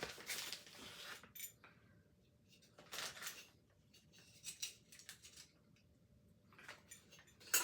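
Intermittent rustling of packaging and light clinks of small metal heater parts being handled and taken out of a box, with a sharp click near the end.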